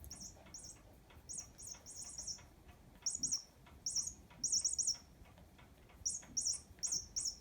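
Chirping cat-toy mouse giving short, high squeaks, singly and in quick runs of two to four, over faint clicking.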